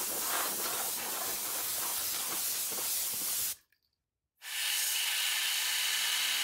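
Can of compressed air spraying dust out of a computer's insides: a steady hissing blast that stops about three and a half seconds in, then a second blast a moment later. Near the end a rising whine joins it as the jet spins up a cooling fan.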